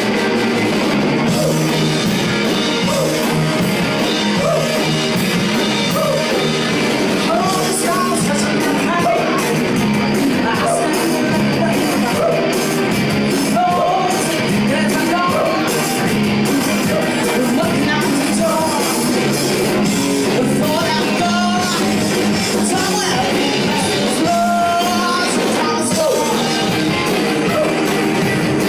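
Live rock band playing loudly: a woman singing over electric guitars and drums.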